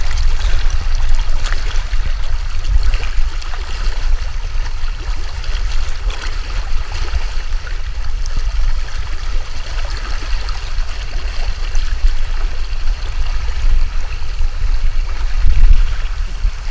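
Spring-fed stream water rushing and splashing right at the microphone, a steady hiss over a heavy, fluttering low rumble.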